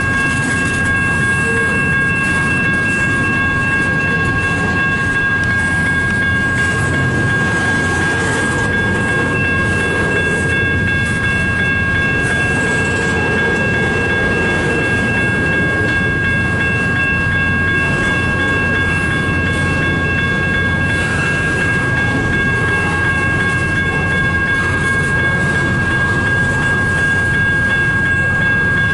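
CN double-stack intermodal freight train rolling slowly past: a steady rumble of wheels on rail, with a steady high-pitched whine held over it.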